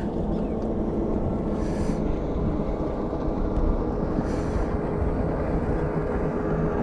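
Motorboat engine running steadily, a low rumble with a held steady tone.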